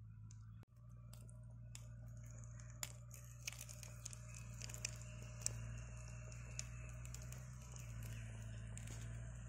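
Egg batter frying in a cast-iron paniyaram pan over a wood fire: steady sizzling with scattered sharp pops and crackles, over a steady low hum.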